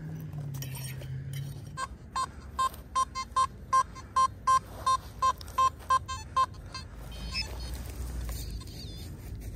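Nokta Makro Simplex metal detector sounding a quick string of about fourteen short, identical target beeps, some in pairs, as the coil sweeps over a target. The signal is a jumpy one.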